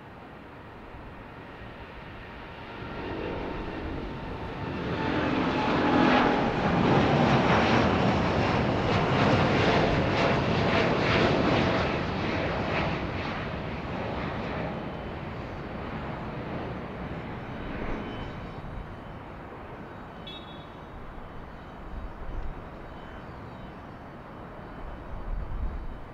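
Boeing 787-8's Rolls-Royce Trent 1000 turbofans at takeoff thrust as the airliner lifts off and climbs past. The jet noise swells over the first few seconds, is loudest for about six seconds with a falling whine, then fades to a distant rumble.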